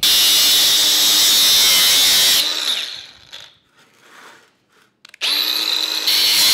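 Angle grinder cutting through a hardened-steel handsaw blade: a loud, steady grinding screech. About two and a half seconds in it stops and the disc winds down; after a pause of about two seconds it spins up again and cuts on.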